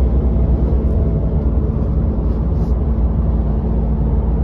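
Steady low rumble of a coach bus in motion, engine and road noise heard from inside the passenger cabin.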